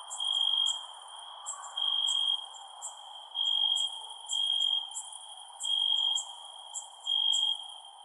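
Crickets chirping at night: a loud, pure-toned trill lasting about half a second repeats roughly every second and a half, with fainter, higher chirps in between and a steady soft hiss beneath.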